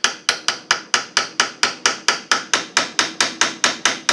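Hammer tapping rapidly and evenly on metal, about four or five light blows a second with a bright ring, driving a pin into the hole in a gearbox shaft.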